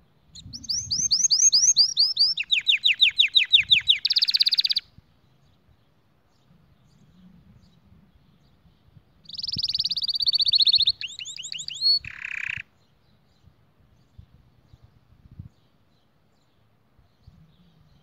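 Canary singing two bursts of song made of fast, high trills of rapidly repeated sweeping notes that shift pitch from one trill to the next. The first burst lasts about four and a half seconds; the second starts about nine seconds in and lasts about three seconds.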